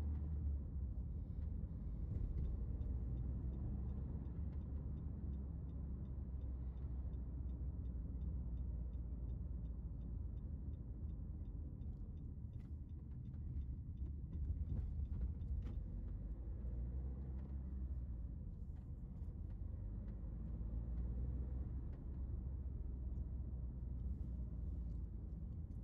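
Steady low rumble of a car driving along an open road, heard from inside the cabin: engine and tyre noise.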